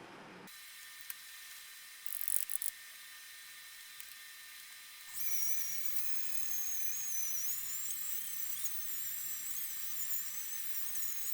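A high-speed rotary tool starts about five seconds in, whining at a high pitch that wavers up and down as it works. It follows a steady hiss with a few short, sharp bursts near two seconds in.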